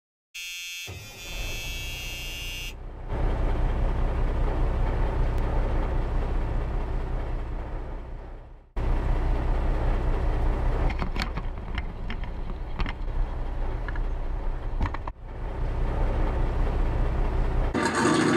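A brief pitched tone with many overtones opens the audio. After it comes a radio-controlled Axial Wraith scale rock crawler driving over loose rock and gravel: a steady low motor and drivetrain rumble, with a few sharp clicks of stones part-way through.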